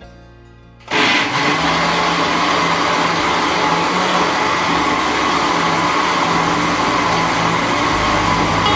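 Countertop blender (Zaiba) switched on about a second in and running steadily, puréeing soaked soybeans in water into soy milk.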